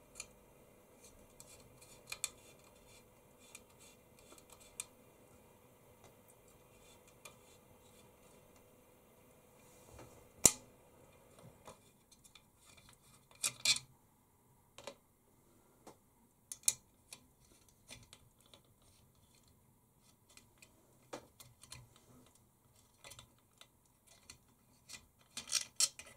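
Scattered small clicks and taps of screws and parts being handled as the part-cooling fan is unscrewed from a Prusa i3 MK3S extruder, the sharpest about ten seconds in. A faint steady hum runs under the first twelve seconds or so.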